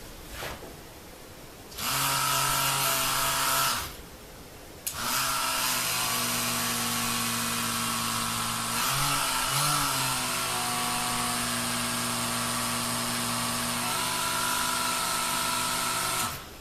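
Handheld electric massager running: a short burst of about two seconds, then after a brief pause a long run of about eleven seconds, its steady hum wavering in pitch briefly midway.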